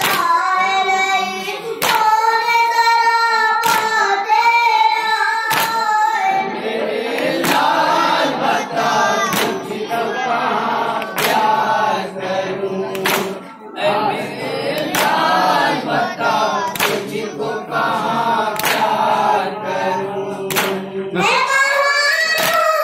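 A noha (Muharram lament) is sung by a lead voice, with a group of mourners taking up the refrain together for most of the middle. Under it comes rhythmic matam, hands striking chests in unison, about one strike every two seconds.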